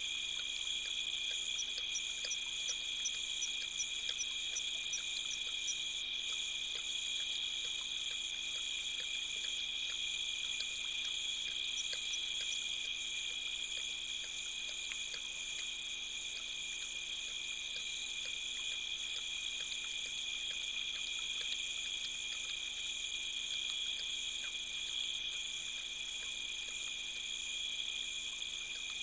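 Steady night chorus of crickets and other insects: several continuous high trills layered together, with a short run of quick pulsing calls in the first few seconds and faint scattered ticks.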